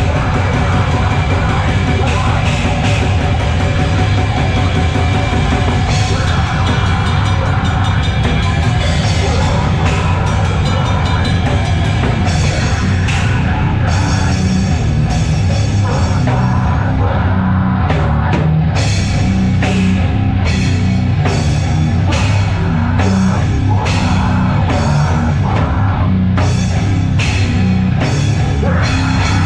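A heavy metal band playing live and loud, with a drum kit hitting fast under dense, heavy instrumentation. For a couple of seconds about halfway through, the cymbal wash drops away, then the fast hits come back.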